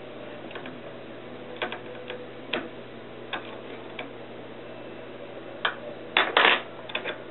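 Scattered light metallic clicks and taps of small engine parts being handled, with a louder clatter of clicks about six seconds in, over a steady hum.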